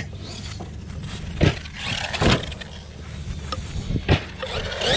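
Brushless-motor RC monster truck driving on grass some way off, heard under wind rumble on the microphone, with three sharp thumps about one and a half, two and a quarter and four seconds in.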